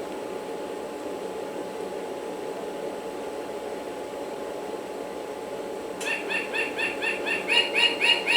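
Steady low background hum. About six seconds in, a bird starts a rapid run of short, evenly spaced chirps, about five a second, lasting some three seconds.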